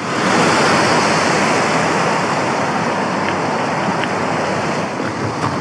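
Rocky mountain stream rushing over stones: a steady, loud rush of water that cuts in suddenly.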